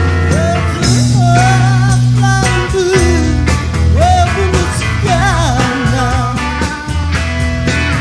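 Psychedelic rock played live by a band: electric guitars, bass and drums, with a lead vocal sung over them.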